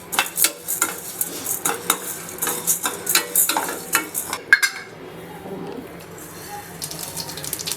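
A metal spoon stirring and scraping in a cooking pan, with repeated clinks against the metal. It goes quieter for about two seconds past the middle, then clinks again near the end.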